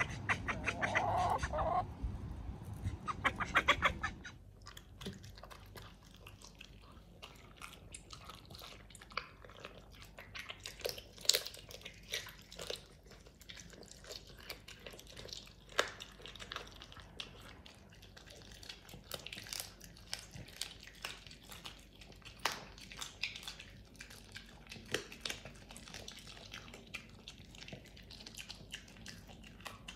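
Poultry calling for the first four seconds or so, with a quick run of clucks near the end of that stretch. After that a miniature dachshund chews and gnaws a chew, with scattered soft clicks and crunches on and off.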